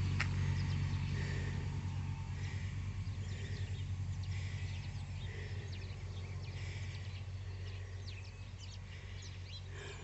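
A tractor's engine running steadily and slowly fading as it moves away, with birds chirping over it.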